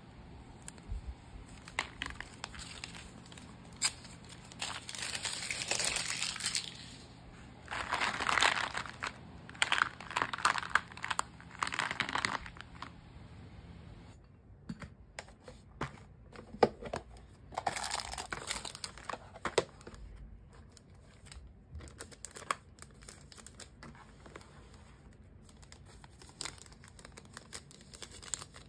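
Packaging being crinkled and handled while small orders are packed by hand, in several bursts of rustling with scattered light taps and clicks between them.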